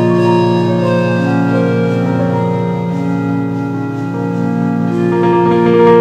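Ambient synthesizer keyboard music: sustained organ-like chords, each held for a second or more before moving to the next.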